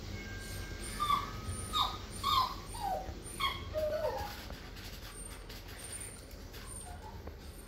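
A dog whining: about six short, high whimpers, each falling in pitch, between about one and four seconds in, then a few fainter ones near the end.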